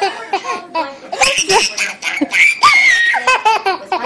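A toddler giggling and laughing uncontrollably in a string of short, high-pitched bursts.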